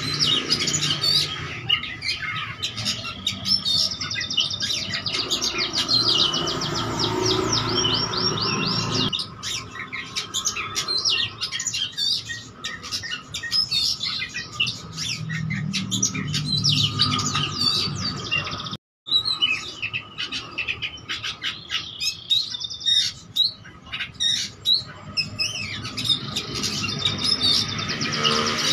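Caged oriental magpie-robin (kacer) singing continuously: a varied, fast song of chirps, whistles and rapid trills, full of mimicked calls of other birds. The sound cuts out for a moment about two-thirds of the way through.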